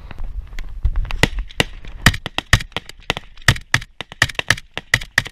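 Loud rifle gunfire in a firefight: a rapid, irregular string of sharp shots, about five a second, starting about a second in and keeping on without a break.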